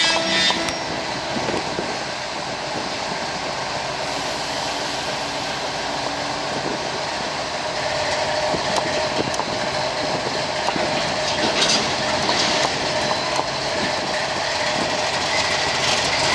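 GE diesel locomotives running steadily, just coupled to a train: a clank of the couplers closing right at the start, then a steady engine rumble with a steady tone coming in about six seconds in and a few scattered knocks.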